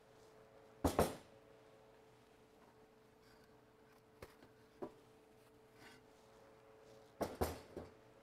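Knocks and clatters of wooden bagel boards being handled in the oven: a loud double knock about a second in, two light taps in the middle, and a quick cluster of knocks near the end, over a faint steady hum.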